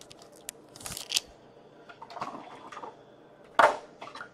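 Trading cards and their packaging handled on a table: short rustles, slides and taps, with a louder rustle about three and a half seconds in.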